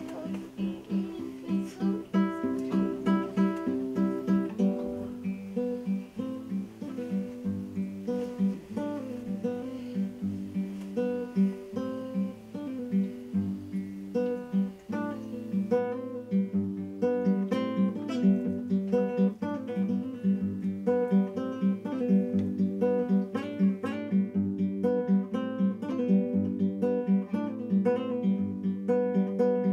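Background music: acoustic guitar picking a steady run of short notes.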